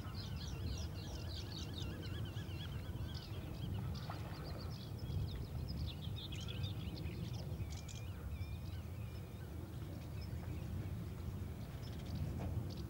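Small songbirds singing, several overlapping warbling and chirping phrases throughout, over a steady low rumble.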